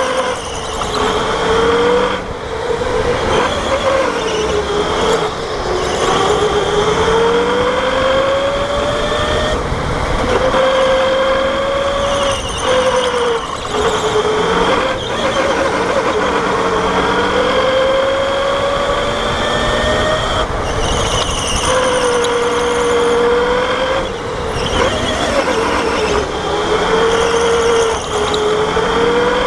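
Electric go-kart at racing speed: its motor whine climbs in pitch for several seconds at a time as the kart speeds up, then drops as it slows into the corners, lap after lap. A steady high whine sits above it, with tyre and chassis noise.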